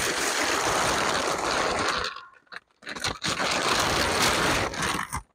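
Crunching and rustling of dry, dying garden plants being pulled and handled, in two spells of about two seconds each with a short pause between.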